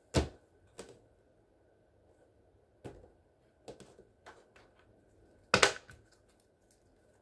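Tarot cards being handled and laid on a table: several sharp slaps and clicks, the loudest just after the start and again about two thirds of the way through, with softer ticks between.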